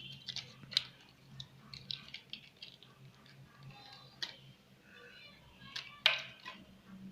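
Slime being squeezed and worked by hand, giving irregular sticky clicks and crackling pops, with a louder burst of crackles about six seconds in.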